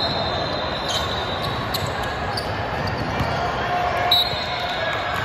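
Ball thudding on a hard gym court, a few sharp hits, over a steady murmur of spectator voices. A short high squeak comes about four seconds in.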